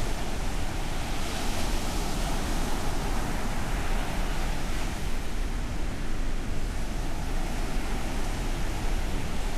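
Ocean waves breaking and washing on a beach: a continuous rushing surf with a low rumble beneath, swelling brighter a little after a second in.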